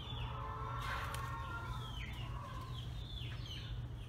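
Chickens calling in the background: a series of short, falling calls about every half second, over a steady low hum.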